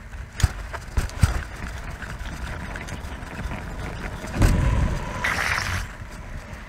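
BMX bike rolling over brick pavers: a steady rumble and rattle, with a few sharp knocks in the first second or so and a louder burst of rumble and hiss about four and a half seconds in.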